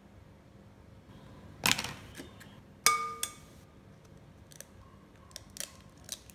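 Eggshells knocking against glass bowls: two sharp knocks about a second apart, the second leaving a brief glass ring, then a few lighter taps as an egg is cracked on the bowl's rim.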